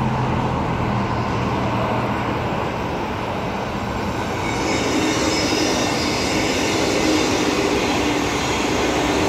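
Steady freeway traffic noise. From about halfway through, a six-car Transperth electric multiple-unit train approaches on the line in the freeway median, and its hiss and hum grow louder.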